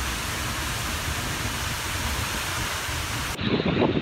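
Seljalandsfoss waterfall rushing, a steady, dense wash of falling water heard from right behind the falling curtain. About three and a half seconds in it changes abruptly to a lower, uneven gusty rumble.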